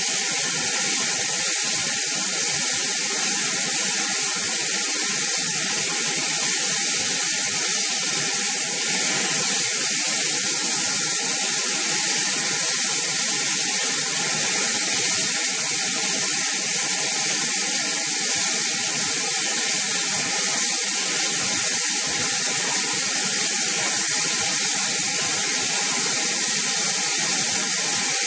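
GWR Large Prairie 2-6-2T steam tank locomotive standing still, giving off a steady, unbroken hiss of escaping steam.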